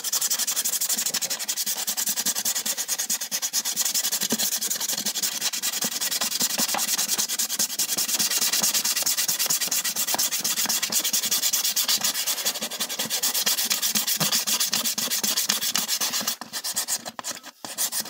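Sandpaper rubbed by hand on plywood in quick back-and-forth strokes, sanding off peeled tape adhesive. There is a short pause near the end.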